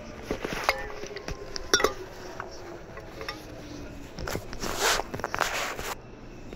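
Handling noise from a phone in a pocket or bag: rustling, clicks and knocks, louder for a moment past the middle. Under it runs the sound of a Seibu 2000 series train, with a faint tone slowly falling in pitch.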